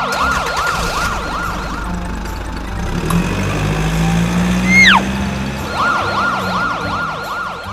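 Toy emergency vehicle siren wailing in a fast up-and-down yelp, about three sweeps a second. It drops out in the middle, leaving a steady low rumble and a single falling whistle about five seconds in, then the yelping siren comes back near the end.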